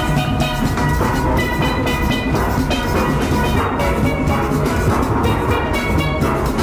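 Steel pan band playing live: rapid ringing metallic notes of the lead pans over the deep notes of oil-drum bass pans, in a steady rhythm.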